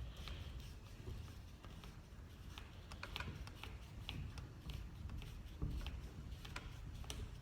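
Hydraulic bottle jack being pumped to tension a zip-tie flywheel puller: faint, irregular light clicks and ticks, about two a second.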